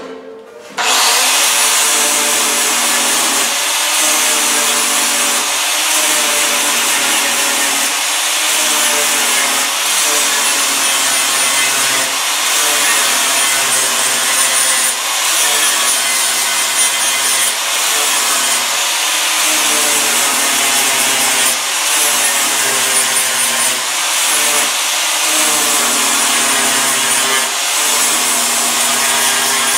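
Angle grinder grinding the steel sheet metal of a 1950 Ford's lower rear body, starting about a second in and running steadily under load with a high whine.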